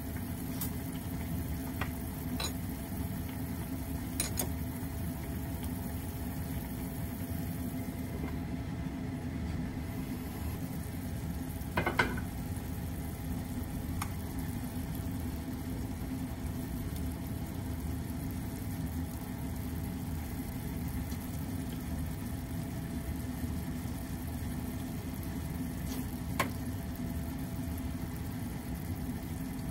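Chicken and vegetables braising in soy sauce in a pot on a gas burner, simmering with a steady low rumble. A few faint pops and clicks break in, and there is one sharper knock with a short ring about twelve seconds in.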